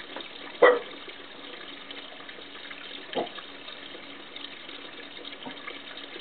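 An animal's short, sharp bark-like call, loud, about half a second in, followed by a fainter one about three seconds in and a very faint third near the end, over a steady hiss.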